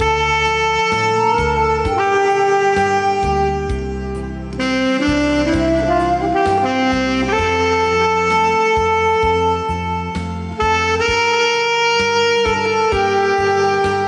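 Alto saxophone playing a ballad melody in long held notes over a backing track with bass, with a rising run of short notes about five seconds in.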